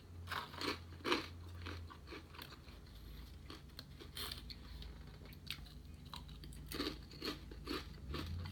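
A person chewing food close to the microphone, with irregular soft crunches and smacking throughout.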